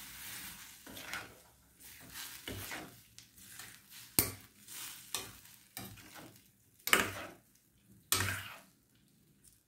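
Steel ladle stirring chopped lemons through hot pickle liquid in a stainless steel kadai: repeated scrapes against the pan, with sharper clinks of metal on metal about four, seven and eight seconds in.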